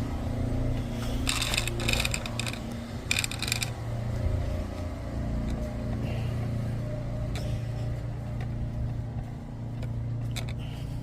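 A steady low engine hum, with bursts of clattering and clicks between about one and four seconds in.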